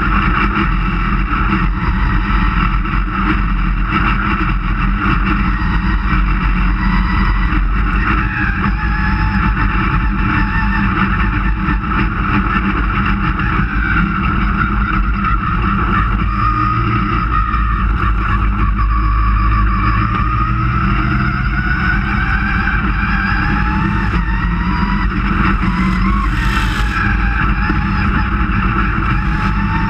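Dirt-track race car engine heard from inside the cockpit, running hard and steadily, its pitch slowly rising and falling with the throttle around the track. A short hiss comes near the end.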